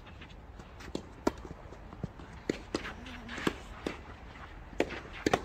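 Doubles tennis rally: an irregular run of sharp pops from racket strikes and ball bounces, about a dozen in all, mixed with the players' quick footsteps on the court.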